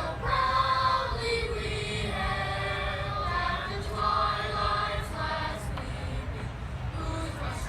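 Boys' choir singing the national anthem unaccompanied, with sustained sung notes over a steady low hum from the outdoor PA or crowd.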